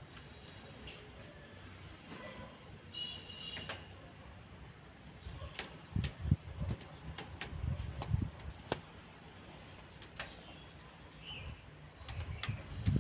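Handling noise from a clear plastic plant cup being held and turned: scattered sharp clicks, with low bumps from about six seconds in and again near the end. Faint high chirps sound underneath.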